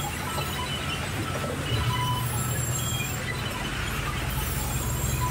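Large vertical band saw mill and its log carriage running, a steady low mechanical drone that grows heavier about two seconds in as the log is fed through. Faint music plays over it.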